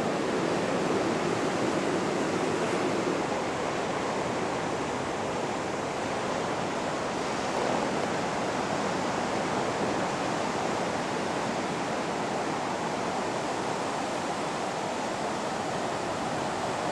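Steady rushing noise of ocean surf breaking on a beach.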